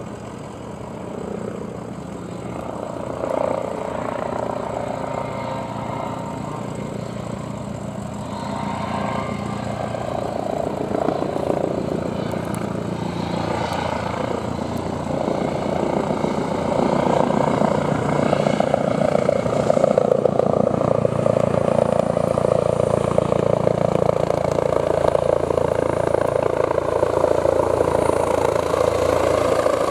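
Airbus H135 (EC135) twin-turbine helicopter approaching to land, its rotor and engine noise growing steadily louder as it comes closer and descends.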